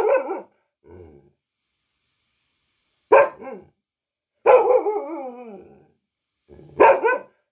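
Dog barking in a few loud, separate barks a second or two apart. The longest, about halfway through, is drawn out and falls in pitch.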